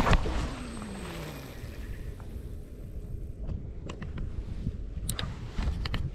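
Spinning rod cast: a swish, then line whirring off the spinning reel with a pitch that falls over about a second and a half. A few sharp clicks follow from the reel as the slack is wound in, over a steady low rumble.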